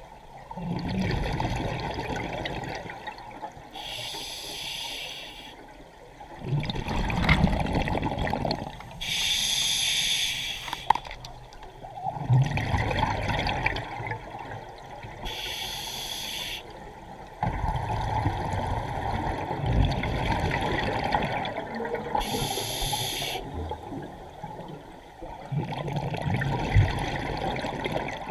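Scuba regulator breathing underwater. Each short, hissing inhale through the regulator is followed by a longer low gurgle of exhaled bubbles, about four breaths in all, one every six seconds or so.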